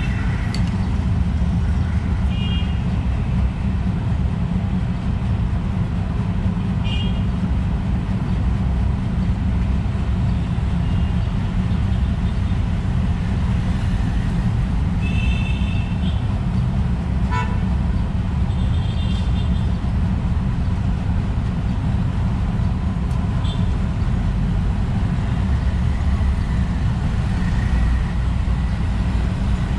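Steady low rumble of street traffic, with a few short high chirps from small birds scattered through it and a single click about halfway.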